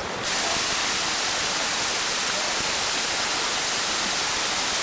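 Steady rushing of running water, close and loud, that comes in abruptly just after the start.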